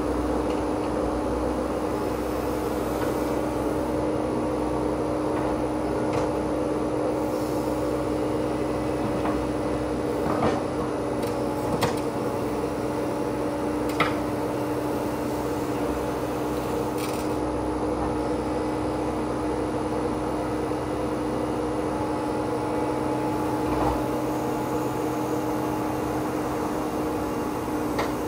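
Menzi Muck walking excavator and its hydraulic flail mower running steadily, a constant hum over a steady mechanical noise. A few short sharp knocks stand out now and then.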